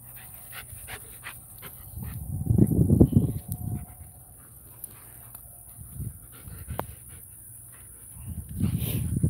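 A group of dogs, German Shepherds among them, playing rough: panting and scuffling, with two louder low rushes of sound, the loudest about two to three seconds in and another near the end.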